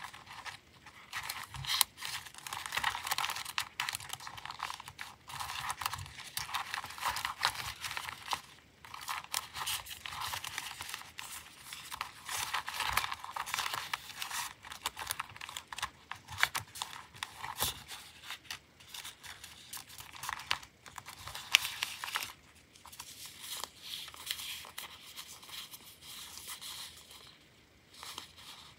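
Loose die-cut paper stickers rustling and crackling as fingers riffle and flick through a tightly packed stack, with many small paper clicks. The sound thins out near the end.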